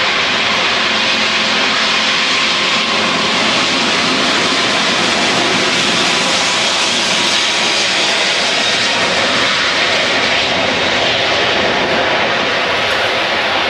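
Airbus A380's four jet engines running at high thrust during take-off, a loud, steady rushing noise.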